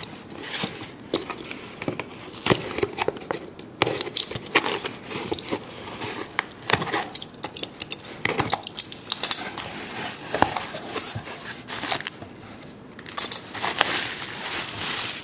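A cardboard parcel cut open with a utility knife along packing tape: a run of sharp scrapes, clicks and tape tearing as the blade slits the tape and the flaps are pulled apart, then bubble wrap crinkling near the end.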